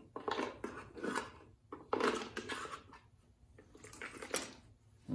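Small chainsaw parts being picked up and handled on a workbench: a string of irregular clatters and scrapes of hard plastic, loudest about two seconds in.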